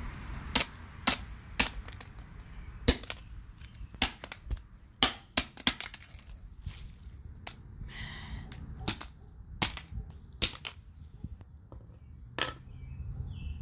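A hammer striking a flip phone again and again: well over a dozen sharp blows at uneven intervals, with a brief crunch about two-thirds of the way through as the phone's screen starts to break.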